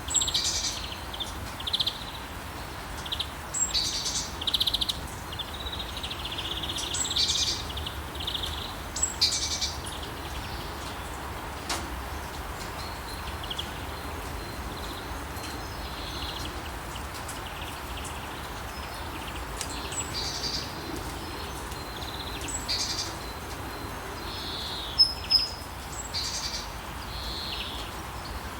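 Steady rain with birds singing and chirping over it: short calls every second or two, thickest in the first ten seconds and again from about twenty seconds in.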